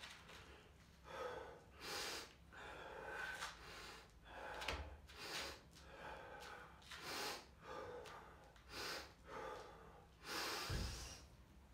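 A man breathing hard and forcefully, with about a dozen sharp, quick breaths roughly one a second. He is bracing and psyching up in the setup for a heavy Steinborn squat.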